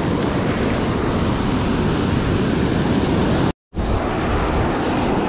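Breaking surf with wind rushing on the microphone, a steady loud noise that cuts out completely for a moment about three and a half seconds in.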